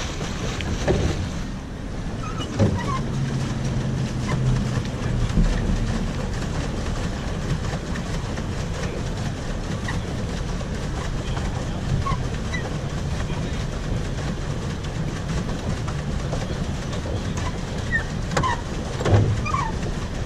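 Swan pedal boat's paddle wheel churning the water as it is pedalled, a steady churning noise.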